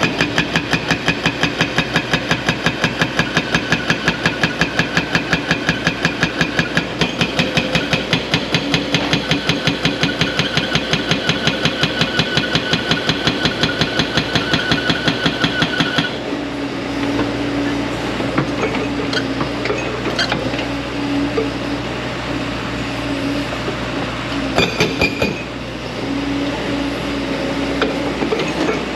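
Excavator-mounted hydraulic breaker hammering rock in rapid, even blows that stop suddenly a little past halfway. The excavator's engine and hydraulics keep running afterwards, with a few metal clanks.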